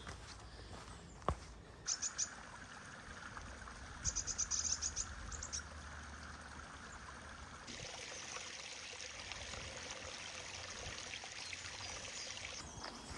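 Woodland ambience with wild birds chirping: a few short high chirps, then a quick run of them about four seconds in. About halfway through a steady high hiss, like running water, sets in for about five seconds and stops abruptly near the end.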